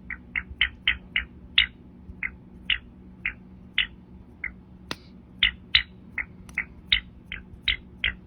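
Glass screen protector squeaking in short, high, mouse-like chirps, two or three a second at uneven intervals, with one sharp click about five seconds in.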